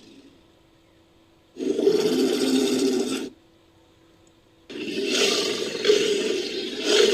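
Rhinoceros roaring twice: a noisy call of nearly two seconds, then after a pause of about a second and a half a second call that begins near the end and carries on.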